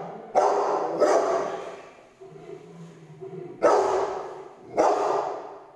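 A Rottweiler barking in four loud barks: two about half a second apart, then a pause, then two more a little over a second apart. Each bark echoes off into the room.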